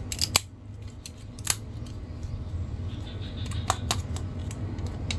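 Plastic Hulkbuster action figure being handled, its joints clicking sharply a few times as the arms are bent and turned, over a steady low hum.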